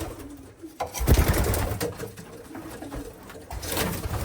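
Racing pigeons cooing in a loft, with two loud rustling bursts: a longer one about a second in, and a shorter one near the end.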